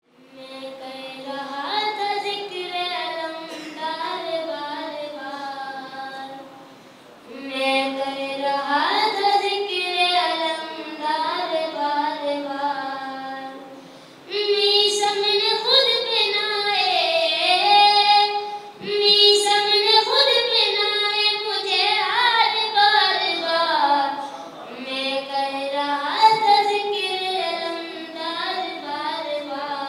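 A boy singing a manqabat, an Urdu devotional praise song, solo into a handheld microphone, in long ornamented phrases with a few short pauses between them.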